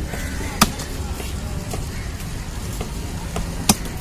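Knife chopping fish on a wooden log chopping block: two sharp chops about three seconds apart, with lighter knife taps between, over a steady low market din.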